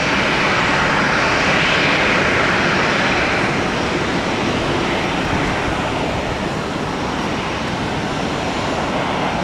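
Jet airliner engine noise, a steady rushing sound that is strongest about two seconds in and then slowly eases off.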